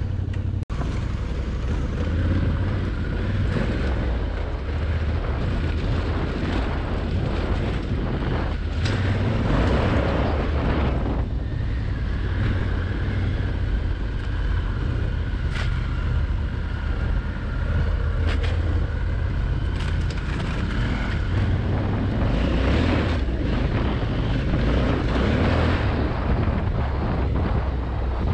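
Adventure motorcycle engine running steadily at trail speed on a dirt track, with wind noise on the microphone.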